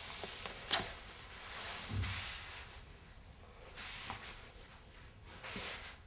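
A person's body and clothing scuffing and sliding over a drawing-covered floor in several separate swishes. There is a sharp knock under a second in and a soft low thump about two seconds in.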